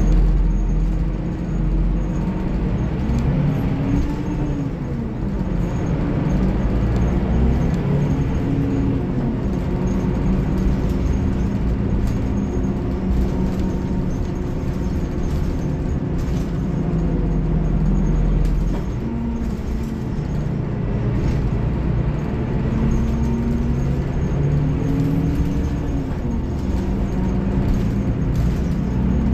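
Scania DC13 13-litre inline-six diesel of a Scania K360IB bus running under way. The engine note climbs and then drops several times as the bus accelerates and the Opticruise gearbox changes gear.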